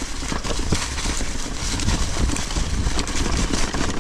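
Mountain bike riding over a dirt trail: a steady low rumble of tyres and rushing air, with a dense clatter of small knocks and rattles from the bike over bumps.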